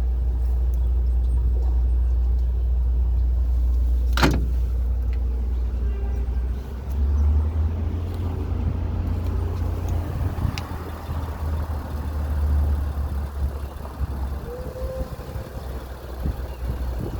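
Wind buffeting the microphone as a steady low rumble, with one sharp click about four seconds in.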